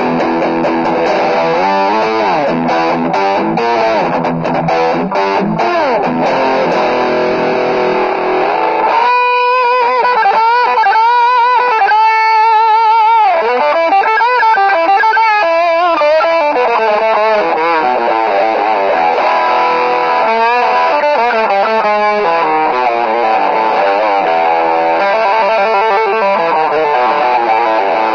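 Maison Les Paul-style electric guitar played through effects: busy riffing for the first several seconds, then from about nine seconds in sustained lead notes with wide vibrato and bends, before fuller playing returns.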